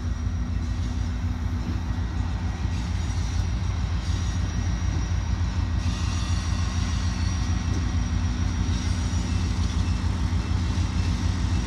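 EMD GP30M diesel-electric locomotive engine running as the train approaches, a steady low rumble that grows slightly louder near the end.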